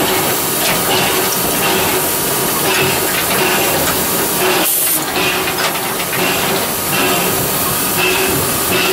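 Steady rush and hiss of steam in a steam locomotive's cab, with a faint steady hum underneath. A brief, sharper high hiss comes about five seconds in.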